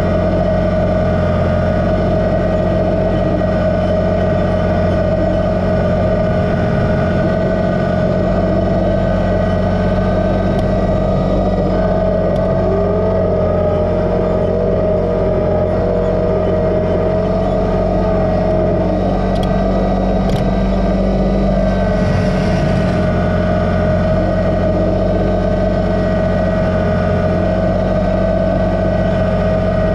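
Kubota BX2380 sub-compact tractor's three-cylinder diesel engine running steadily under work, with a steady whine over the engine note and a fainter tone that wavers in pitch midway through.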